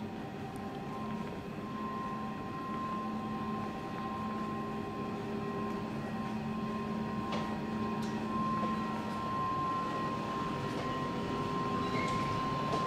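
Rhaetian Railway Allegra ABe 8/12 electric railcar standing at the platform, its onboard electrical equipment running with a steady hum and a constant high whine. A few faint clicks come through in the second half.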